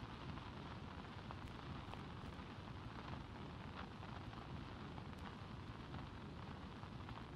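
Faint steady hiss with a few scattered clicks and pops: soundtrack noise and crackle.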